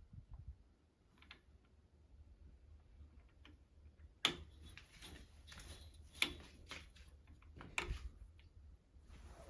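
Faint, scattered light clicks and taps, with a few sharper ones about four, six and nearly eight seconds in.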